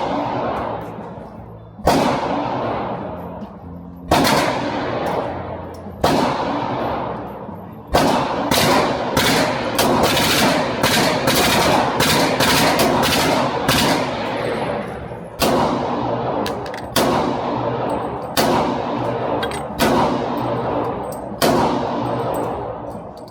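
Pistol shots at a range, each with a long reverberant decay: single shots about every two seconds at first, then a fast string of shots from about eight seconds in, then slower shots again about every one and a half seconds.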